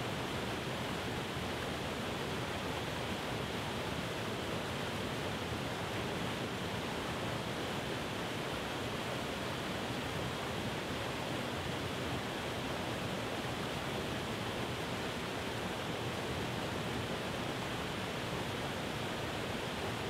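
Waterfall cascading over rock: a steady, unbroken rush of falling water.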